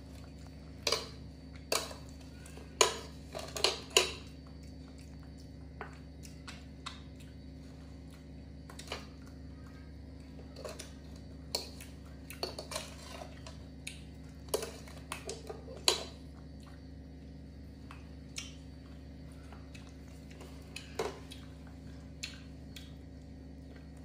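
Scattered light clicks and clinks of plates and a utensil being handled, several close together in the first few seconds, more in the middle and a couple near the end, over a steady low hum.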